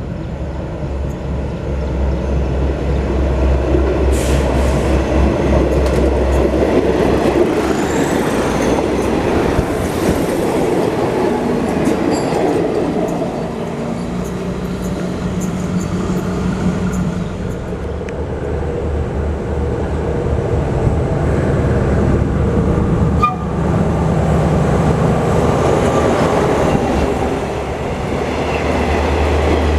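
Passenger trains rolling past a station platform: a diesel railcar set runs by with its engine humming and its wheels rumbling and clicking over the rail joints. Near the end, locomotive-hauled passenger coaches roll past.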